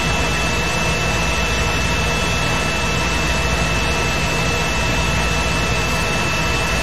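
Steady whirring noise with a low hum and a thin, constant high-pitched whine, unchanging throughout.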